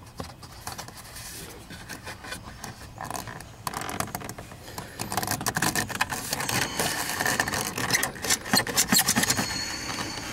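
Hands pulling and working loose the plastic trim bezel around a 2005 Dodge Caravan's instrument cluster. The plastic clicks, scrapes and rattles in a dense run that starts about four seconds in and keeps building.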